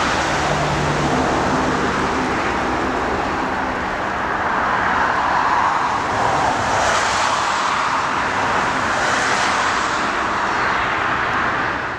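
Steady, loud roar of a Boeing airliner's jet engines as it lands, running without letup for the whole stretch.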